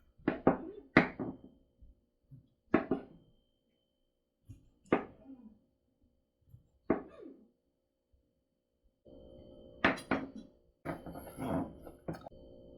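A series of irregular knocks and thuds, about ten in all, some in quick pairs, with a faint steady hum joining near the end.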